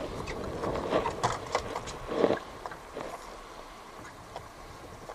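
A series of knocks, taps and scrapes as a freshly caught grey triggerfish is swung aboard and handled on a boat. The loudest knock comes about two seconds in, followed by fainter scattered ticks.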